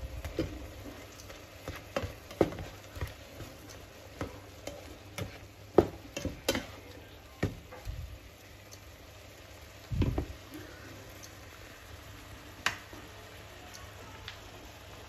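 A spatula pressing and scraping tomatoes and egg in a nonstick frying pan, knocking against the pan irregularly, over the steady sizzle of the simmering tomato juices; the tomatoes are being pressed down to break them up as they stew soft. One louder knock comes about ten seconds in, after which the knocks mostly stop and only the simmer remains.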